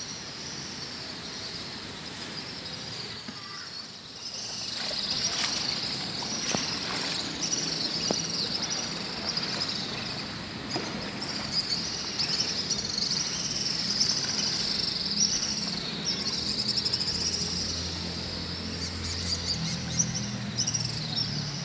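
A steady chorus of insects buzzing in a high, wavering band, over the rush of flowing river water.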